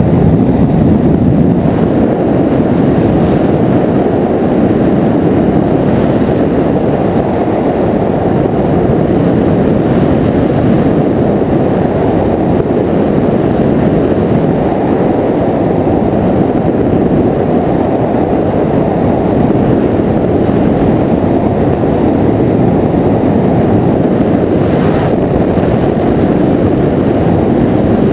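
Paramotor trike's engine and rear propeller running steadily in flight, mixed with heavy wind rush on the microphone.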